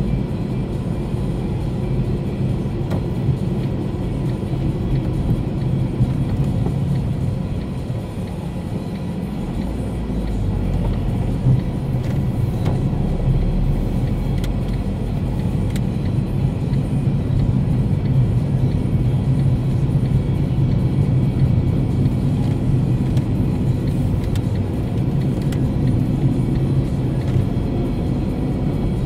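Car cabin noise while driving: engine and tyre rumble running steadily, dipping briefly about a third of the way in and then building again as the car picks up speed.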